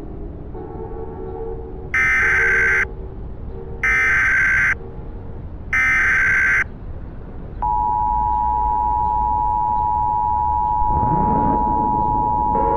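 Emergency Alert System SAME header: three short bursts of warbling digital data tone, each under a second long and about a second apart. A second or so later, a little past halfway, the steady two-tone EAS attention signal starts and continues.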